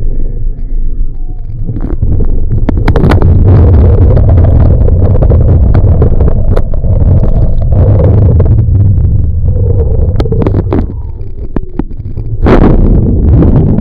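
Water rushing and spraying against a camera mounted on a water ski as it skims the lake, a heavy low rumble with hiss and scattered splash clicks. About twelve and a half seconds in, a louder splash as a wave of water washes over the camera.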